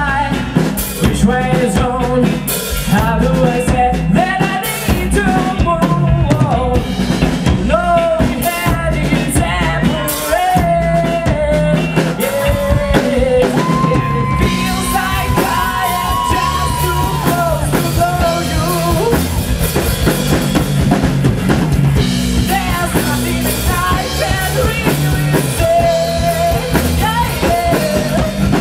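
Rock cover band playing live: drum kit and bass keep a steady beat under a wavering lead melody, with one long held note about halfway through.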